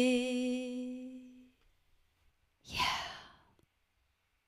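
The tail of a woman's sung note, held with vibrato, fades out over the first second and a half; about three seconds in comes one short, breathy sigh.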